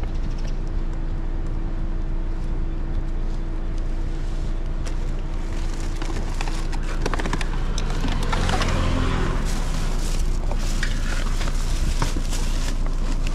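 Car engine idling with a steady hum. From about halfway in come rustling and knocks of bags being loaded into the car's trunk, thickest about two-thirds of the way through.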